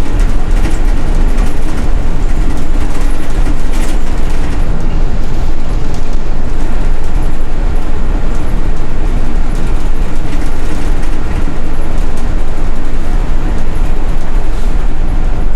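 Cabin noise of a moving city bus: a steady, loud engine and road rumble with scattered rattles and knocks.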